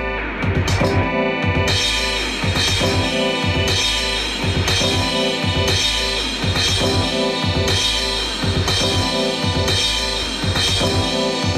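Instrumental beat playing: a drum-kit pattern with kick and snare over bass and sustained melodic parts, looping in a steady rhythm.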